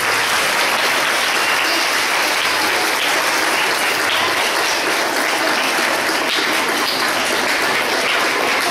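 Audience applauding: steady clapping from many hands, kept up evenly throughout.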